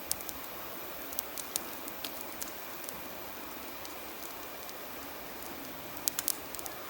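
Campfire crackling, with scattered sharp pops and a small cluster of them near the end, over the steady rush of a flowing river.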